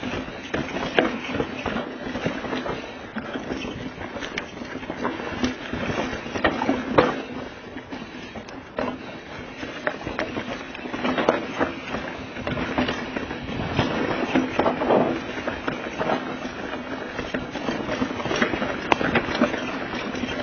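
Mountain bike rolling fast down a rough dirt trail, picked up by a camera clamped to the handlebar: a constant rattle of tyres and bike over roots and rocks, with frequent sharp knocks and clacks from the frame and mount, heaviest in clusters about a third and two thirds of the way in.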